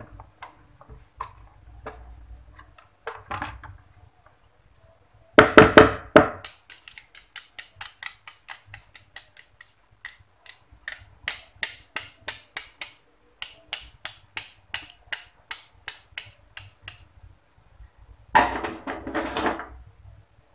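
Metal hand-mixer beaters being cleared of cake batter against the bowl: a ringing clatter, then a long run of sharp clicks about three a second, and another clatter near the end as the beaters are put down.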